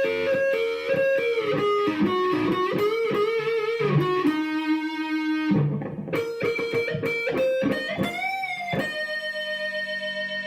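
Electric guitar (Fender Stratocaster through an Orange amp) with moderate overdrive, playing a single-note blues lick in a nice, almost muffled tone. Near the end a note is bent up with vibrato and then held.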